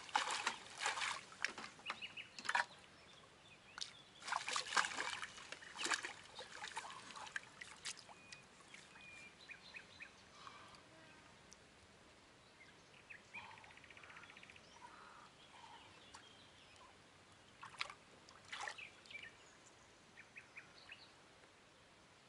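A barbel thrashing in a landing net in shallow river water, a run of splashes over the first several seconds. Then it goes quieter, with small birds chirping, and a few more splashes come near the end.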